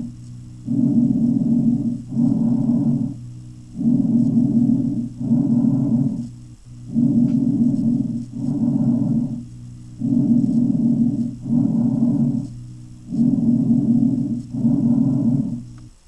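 Bronchial breath sounds: five slow breaths, about one every three seconds. Each breath has an inhale and an exhale of about equal length, with a short pause between them.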